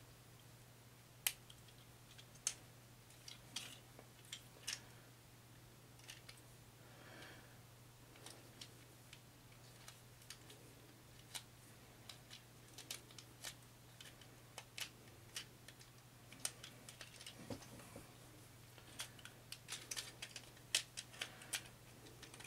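Faint, scattered clicks and snaps of the plastic parts of a Transformers Studio Series Leadfoot action figure being handled and tabbed into place during transformation, over a steady low hum.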